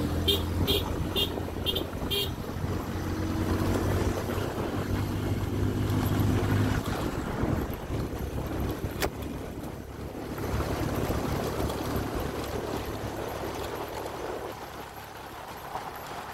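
Motorcycle engine running at a steady pitch while riding a dirt track, its hum fading out about seven seconds in and leaving a steady rushing noise. A quick run of short high beeps, about two a second, sounds during the first two seconds.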